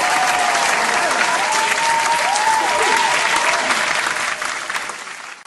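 Crowd applause with cheering voices rising and falling through it, loud and steady, cut off abruptly near the end; only a man and a toddler are in the room, so it is canned audience applause added in editing.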